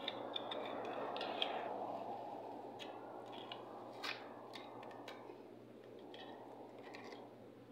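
Scattered small clicks and light rustling as ribbon cables and their plastic connectors are handled on an opened circuit board, over a steady background hum.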